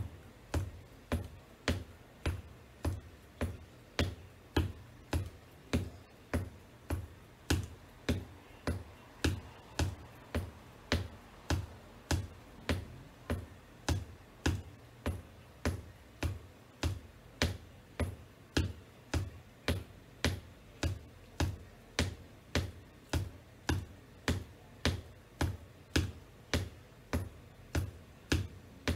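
Black wedge-heeled boots tapping on a hardwood floor in a steady, even rhythm of about two sharp taps a second.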